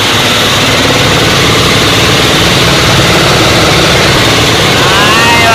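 Small inboard engine of an outrigger fishing boat running steadily, loud and close, with a voice starting near the end.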